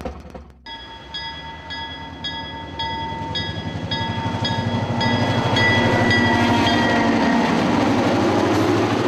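Ontario Northland diesel locomotive running past close by with its bell ringing about twice a second. The bell drops slightly in pitch as the locomotive goes by, over the train's rumble, which builds to a loud peak.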